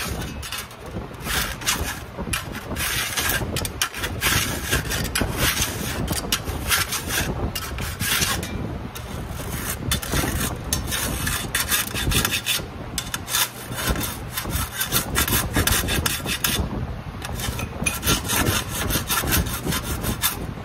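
Dreadnought file worked along the freshly trimmed edge of a steel sheet-metal repair panel in repeated strokes, with a couple of short pauses. The filing blends the highs and lows of the cut edge.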